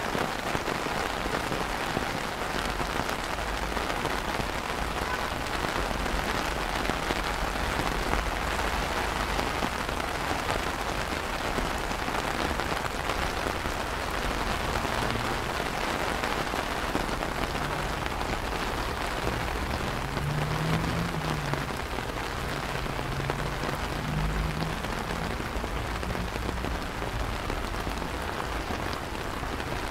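Steady rain falling on wet stone paving and garden plants, an even hiss of drops.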